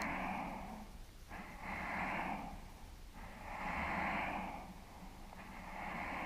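A person breathing heavily close to the microphone, one breath swelling and fading about every two seconds.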